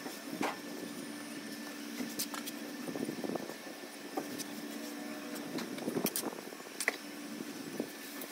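Hand trowel scraping and clicking against fresh cement render on a column's moulded edge, in short strokes, with a few sharp taps. A steady low engine-like hum comes and goes underneath.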